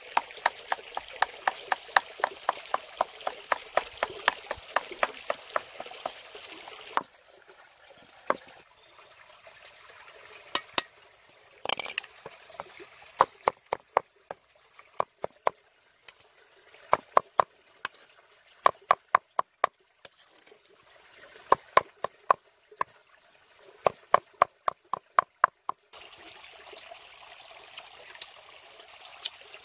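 Cleaver mincing fish flesh against a metal bowl: rapid runs of sharp knocks, several a second, broken by short pauses. A stream's steady rush sits beneath the chopping for the first seven seconds and again near the end.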